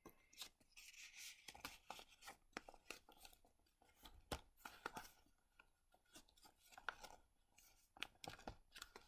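Faint rustling and soft ticks of thick paper pages and tags being flipped and turned by hand in a chunky handmade junk journal, with a longer rustle about a second in.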